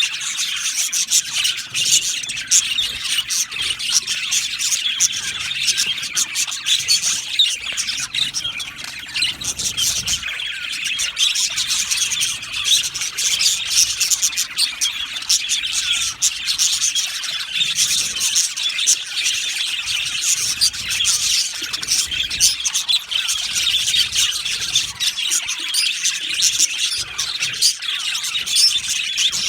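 A colony of budgerigars chirping and chattering nonstop, many birds calling over one another.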